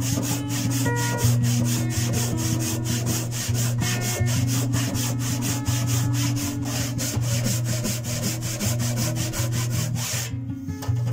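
Handsaw ripping along the grain into the end of an oak board held upright in a vise, in quick, even back-and-forth strokes that stop about ten seconds in.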